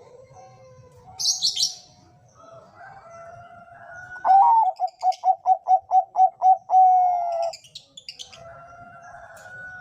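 Bangkok zebra dove (perkutut) cooing: a loud run of about ten quick coos, roughly four a second, ending in a longer held note, over fainter cooing from other doves. A brief high chirping a little after a second in.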